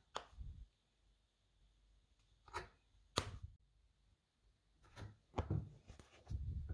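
Press machine driving a 1 mm multi-prong hole punch die through leather and a paper pattern: about six sharp clicks with dull knocks under them, spaced irregularly, the loudest a little after three seconds in.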